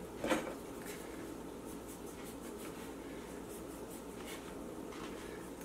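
Quiet rubbing and light scraping of hands shaping bread dough on a counter, with one sharp knock just after the start.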